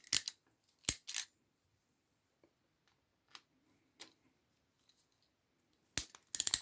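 Hand crimping tool crimping an RJ45 connector onto an Ethernet cable: sharp clicks, three in the first second or so, a couple of faint ones midway, then a quick run of clicks near the end.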